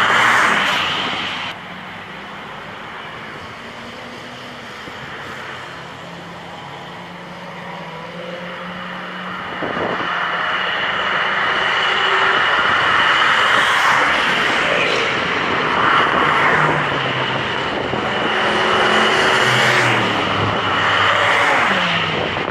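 Cars driving fast along a race track straight. One passes close by right at the start, then several more engines build up and pass, their pitch rising and falling with gear changes and as they go by.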